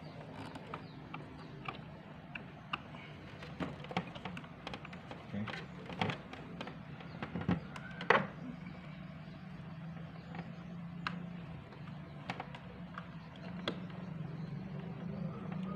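Scattered clicks and light knocks of hands fitting ribbon-cable connectors and plastic parts inside an open Pa50 keyboard, the sharpest knock about eight seconds in, over a steady low hum.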